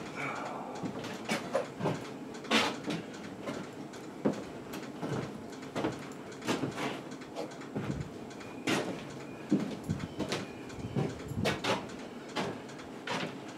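Irregular knocks, clinks and scrapes of tools and metal parts being handled at a workbench, one or two sharp knocks a second.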